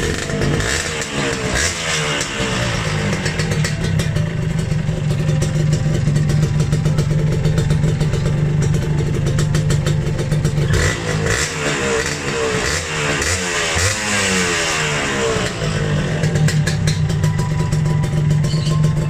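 Kawasaki Victor 150's single-cylinder two-stroke engine running through a GL silencer fitted to the stock pipe with its baffle removed. It idles steadily, with quick blips of the throttle that rise and fall in pitch just after the start and again through the second half, with a crackling edge.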